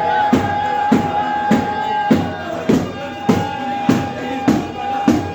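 Sufi hadra music: frame drums beating a steady rhythm, a little under two strokes a second, under a long held chanted note that breaks off about two seconds in and is taken up again a second later.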